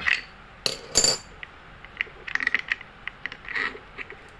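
Metal clinks of a steel adjustable wrench against an e-bike hub motor's threaded freewheel as the freewheel is tightened hard, with a few loud clanks in the first second and then a run of lighter, irregular ticks.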